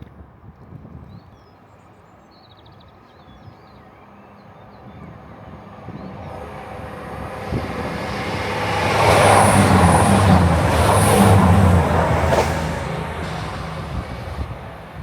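An East Midlands Railway Class 222 Meridian diesel multiple unit passes through the station: its engine and wheel noise rise steadily, are loudest around the middle, then fade away. Faint birdsong is heard at the start.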